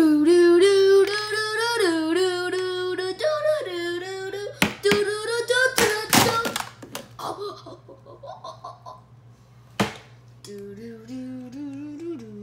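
A voice singing a wordless tune in long held notes that step up and down, then a few sharp knocks, and a lower humming tune with stepped notes near the end.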